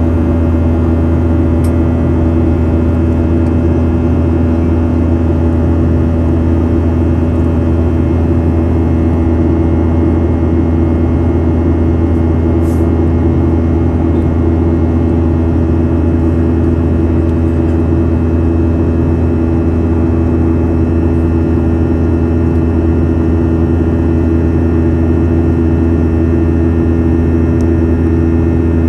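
Boeing 737-800 cabin noise in the climb, heard from a window seat beside the wing: the CFM56-7B turbofan's steady drone with a deep hum and several steady mid-pitched tones over an even rush of air.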